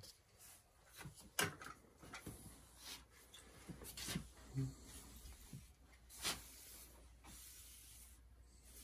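A series of short, faint scrapes and rubbing sounds of a pump sprayer's wand and hose being handled around a wooden headboard, the loudest about one and a half seconds in and again about six seconds in.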